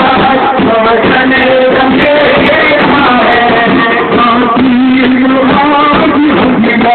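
Sufi devotional singing of a Rifai ratib: voices chanting a melody with bending, held notes, one long low note held about two thirds of the way through.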